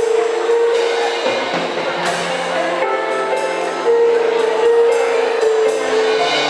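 Live band music: a drum kit with cymbals under held, wavering pitched notes that change chord several times.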